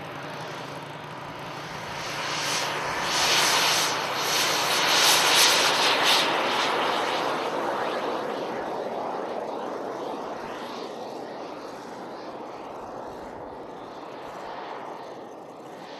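Gas-turbine engine of a radio-controlled BAE Hawk model jet running at takeoff power: a loud rushing hiss that builds to its peak about five seconds in as the jet goes by, then fades as it climbs away.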